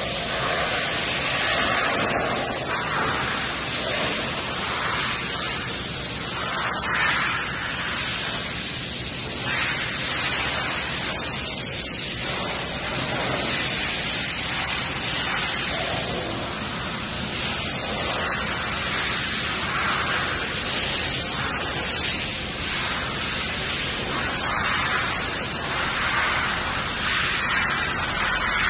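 Fourstar FD-2860 five-axis CNC bridge machining centre running, giving a steady loud hiss like spray, with no breaks.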